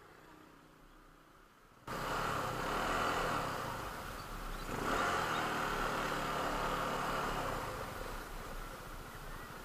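About two seconds of near silence, then an engine running steadily comes in suddenly, with a steady hiss over it.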